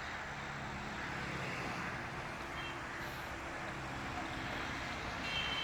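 An engine running steadily, a low even hum, with a faint high tone coming in near the end.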